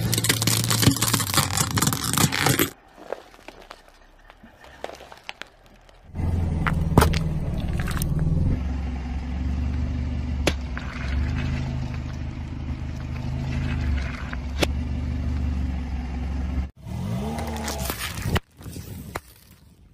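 A car tyre rolling slowly over objects and crushing them: plastic lighters cracking and crackling in a wicker basket, then a balloon of water beads squashed under the tread with a steady low engine hum and sharp cracks, then plastic pudding cups crushed. The sound cuts abruptly between clips.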